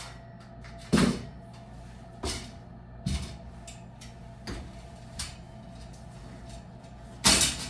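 Metal shower rod being fitted between the walls, knocking and clanking as it is pushed and adjusted into place: about six sharp knocks, the loudest about a second in, and a longer, louder clatter near the end.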